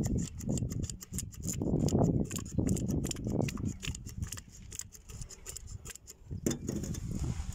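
Hand pump oil can being squeezed over and over, its trigger clicking quickly as it squirts oil, over a low background noise that fades after the first few seconds.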